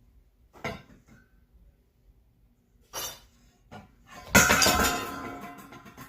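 A sudden loud crash of breaking glass about four seconds in, with clinking and clattering that die away over about a second and a half. Two short knocks come before it.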